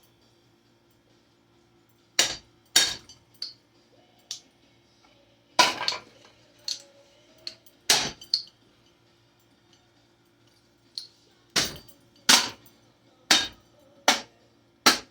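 About a dozen sharp, irregularly spaced knocks and clinks as a Hampton Bay Littleton ceiling fan is struck and broken apart, some hits ringing briefly.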